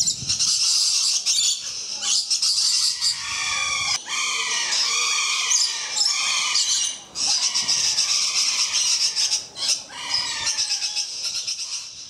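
Swainson's lorikeets chattering and screeching continuously in a shrill, rapid din, with a run of repeated falling calls through the middle.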